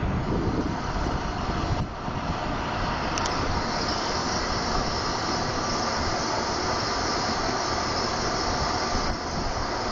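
Wind buffeting the microphone over a steady rushing noise. A higher hiss joins about three seconds in and drops away near the end.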